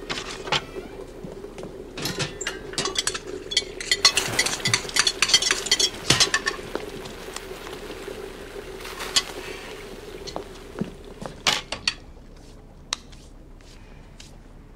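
Crockery and cutlery clinking and knocking: a dense run of quick china clinks in the middle, then a few scattered knocks, over a steady low hum that stops near the end.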